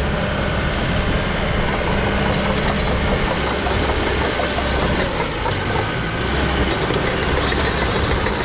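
Diesel engine running steadily at a constant speed.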